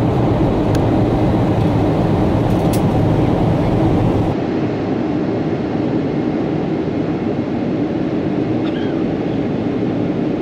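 Steady cabin noise inside a Boeing 777 with Pratt & Whitney engines: an even engine and airflow rumble. About four seconds in it changes abruptly to a slightly quieter, duller rumble.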